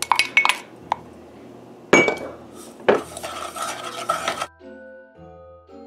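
Wooden spoon tapping quickly against a glass measuring cup and stainless steel saucepan as brown sugar is knocked into the pan, then two sharper knocks and a scraping stir of the sugar and butter in the pan. About four and a half seconds in, soft mallet-percussion music takes over.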